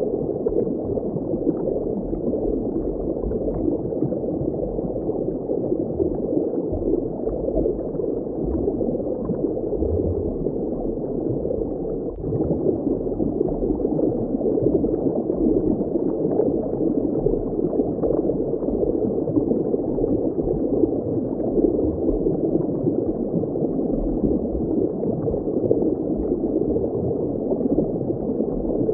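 Steady, muffled underwater ambience of moving water, dipping briefly about twelve seconds in.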